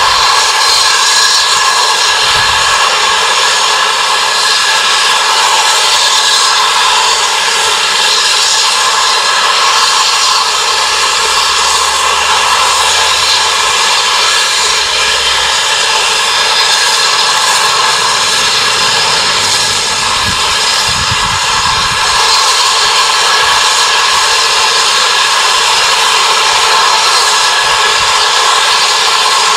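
GWR King class 4-6-0 No. 6023 King Edward II standing with its safety valves blowing off: a loud, steady hiss of escaping steam with a whistling tone in it. This is the sign that the boiler is at full working pressure.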